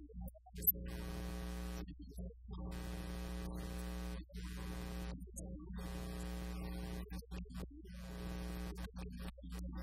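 Electrical mains buzz from the sound system, a steady stack of tones that drops out briefly every second or two, with a single sharp click just under a second in. No voice comes through: the audio fault replaces the speech.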